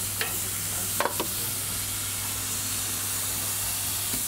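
Steak sizzling on a hot grill grate as a steady hiss, with a few sharp metal clicks of tongs against the grate about a second in.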